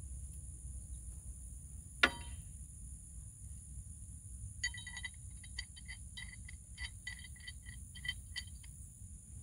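A single sharp metallic clink of tow-strap hardware about two seconds in. Then, for about four seconds, an uneven run of short, high chirping clicks. A steady high insect drone and a low rumble run underneath.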